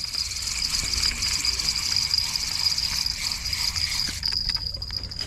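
Steady high-pitched chirring of crickets or similar insects. Near the end it comes with faint rapid ticking from a spinning reel being wound in.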